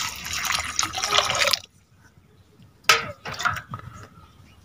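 Water poured from a steel vessel into a steel bowl of diced potatoes and papaya, a steady splashing that stops abruptly about a second and a half in. About three seconds in comes a sharp knock, the loudest sound, followed by a brief clatter.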